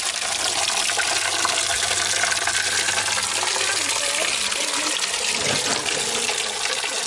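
Water running steadily into a cooking pot full of freshwater mussels, filling it until the shells are covered.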